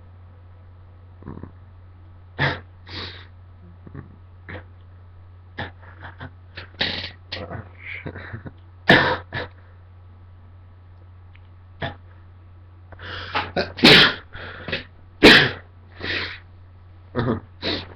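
A person's sneezes brought on by tickling inside a nostril with a cotton swab: sniffs and catching breaths build up, then come loud sneezes, one near the middle and a cluster about three-quarters of the way through.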